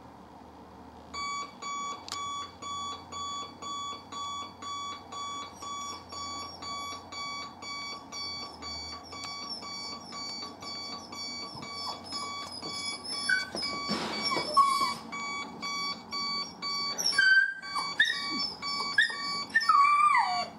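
Electronic alarm clock beeping, starting about a second in as a steady pulse of about two beeps a second. From about two-thirds of the way through, a miniature schnauzer whines and whimpers over it in high rising and falling cries, upset by the alarm.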